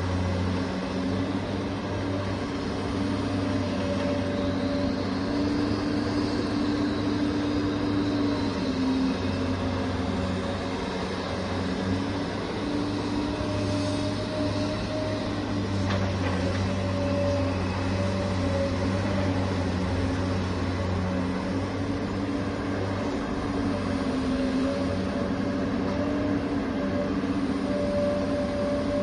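Radio-controlled model construction machine running, its electric motors giving a steady whine whose pitch steps up and down every few seconds as the machine works.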